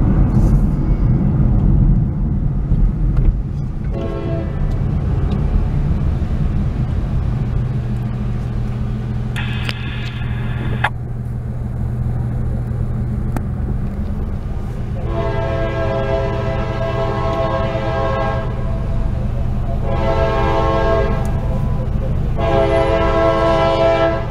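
Diesel locomotive air horn sounding a series of separate blasts for a grade crossing: a short blast about four seconds in, another around ten seconds, then a long blast of about four seconds and two more near the end, growing louder. A steady low hum runs underneath.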